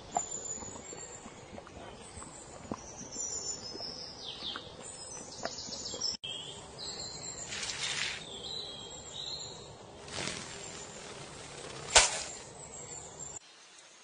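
Nature-sound ambience of high bird chirps and insect calls with scattered small clicks and two soft swelling rushes, broken by one sharp loud click about twelve seconds in.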